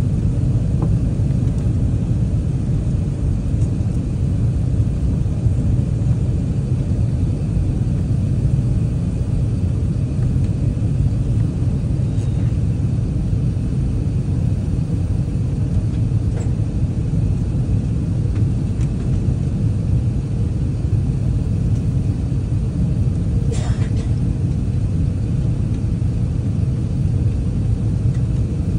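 Steady low rumble of an Airbus A380 heard from inside the upper-deck cabin in flight: airflow and engine noise as the airliner descends. A faint brief click sounds near the end.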